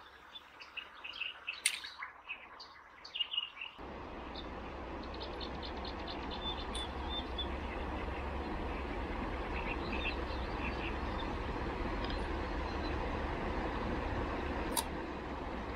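Small birds chirping over a quiet background, with a few sharp clicks, for the first four seconds; then a sudden change to a steady rushing noise with a low rumble, over which a few faint bird chirps continue.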